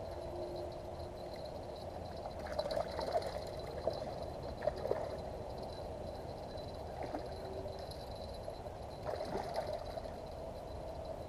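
Hooked river carp splashing and churning the water at the surface close to the bank as it is played on the rod. The irregular splashes and gurgles come in two spells, a few seconds in and again near the end, over a steady background noise.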